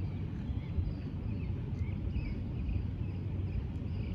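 Steady outdoor background rumble with faint, short high chirps repeating a few times a second; the crossing's bells are silent, with the gates up.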